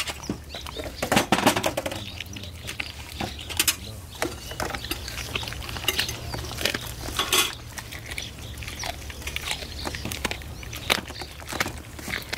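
Siberian husky chewing and tearing at a chunk of raw meat: irregular smacks and clicks of its jaws and teeth, over a low steady background rumble.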